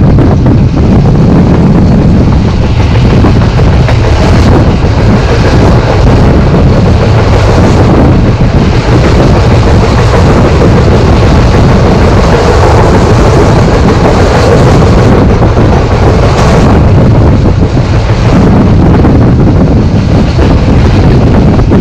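Wind buffeting a microphone held out of a moving passenger train's window, over the steady rumble of the coaches running on the rails.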